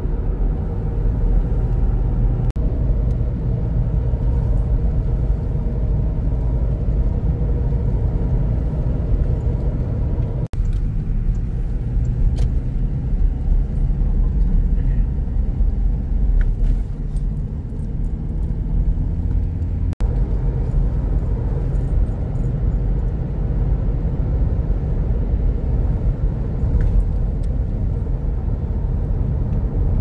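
Steady low road and engine rumble inside a moving car, dropping out for an instant twice.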